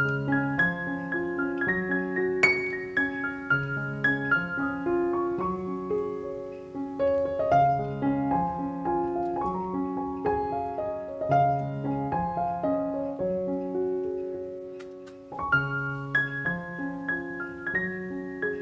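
Background piano music: a gentle melody over steady repeating chords, fading briefly about fifteen seconds in before starting up again.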